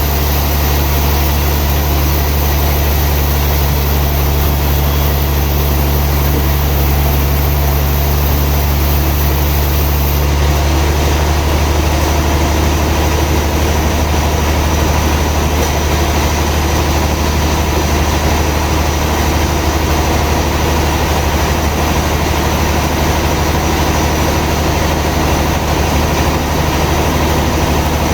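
Sawmill machinery running with a steady, loud low drone; its sound shifts slightly about ten seconds in.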